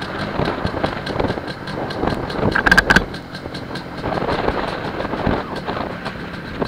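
MZ ETZ 301's single-cylinder two-stroke engine running at low road speed, with a brief loud rattle and squeak about halfway through.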